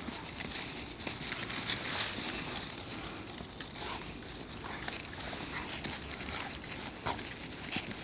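Dogs moving through snow-covered dry leaves and grass: steady rustling with scattered small crackles and snaps.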